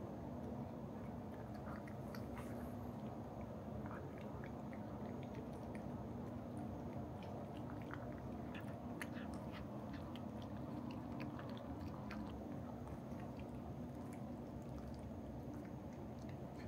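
Munchkin and Minuet cats eating a special treat from ceramic bowls: small irregular licking and chewing clicks throughout, over a steady low hum.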